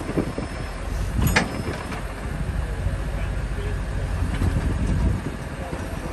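Case IH Maxxum 115 tractor running steadily with a low rumble while its hitched Kinze planter is operated hydraulically, with one sharp clank about a second in.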